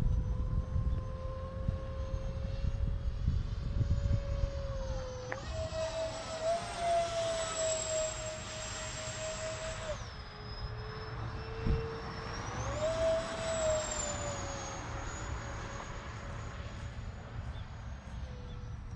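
Twin 70 mm electric ducted fans of a radio-controlled F-22 model jet whining. The pitch jumps up about five seconds in as the throttle opens, drops back a few seconds later, then rises and falls once more, over a low rumble of wind on the microphone.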